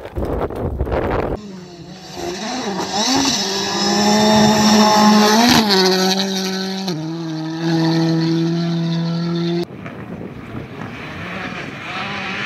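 Rally cars driven hard on a gravel stage: a loud engine note that wavers and climbs, then drops abruptly. The sound changes suddenly about a second and a half in and again near ten seconds, where the shots change between passing cars.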